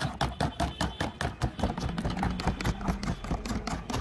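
Rapid hand-stirring of aloe vera juice in a plastic jug: a green plastic stirrer clatters against the jug's sides and splashes the liquid, about seven strokes a second.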